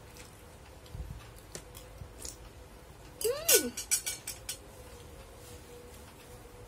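Eating sounds from a mouthful of soupy instant noodles: small clicks of chewing and cutlery, then a short loud slurp with a squeaky rising-and-falling pitch about three and a half seconds in.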